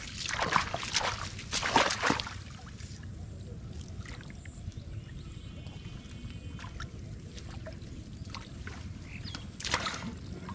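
Shallow muddy water splashing as feet wade and hands grope through it, with several quick splashes in the first two seconds, quieter sloshing after that, and another splash near the end.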